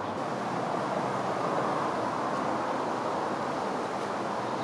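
Steady rushing background noise with no distinct event in it.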